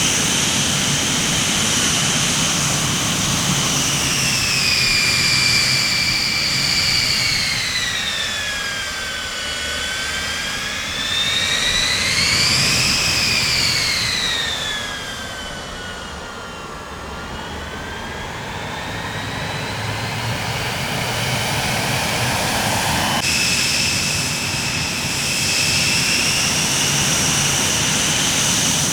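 Jet aircraft engines running with a loud roar and a high turbine whine whose pitch slides down, back up, and down again. About three-quarters of the way through the sound changes abruptly, like a cut to another recording.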